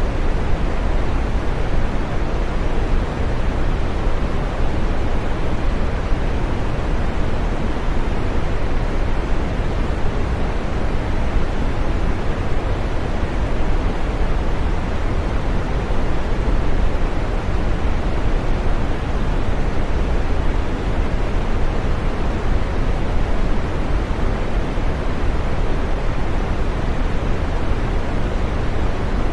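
Continuous green noise for sleep: a steady, even rush with no events, its energy heaviest in the low and middle range and fading toward the highs.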